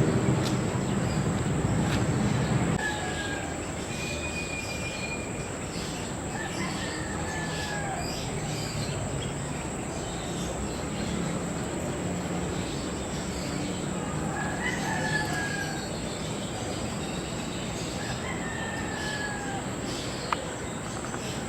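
Scattered bird calls, short whistles and brief gliding notes, over a steady low background rumble that is louder for the first three seconds, with a thin steady high whine throughout and one sharp click near the end.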